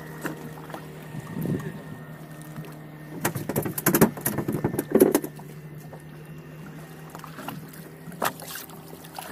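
Small fishing boat's engine idling with a steady low hum, with a quick run of knocks and clatters on the boat about three to five seconds in and a single knock near the end.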